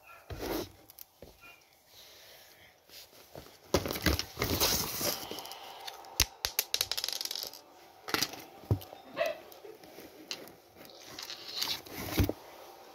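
Cardboard box being handled: irregular rustling, crinkling and scraping with sharp light knocks, busiest from about four to seven seconds in and again near the end.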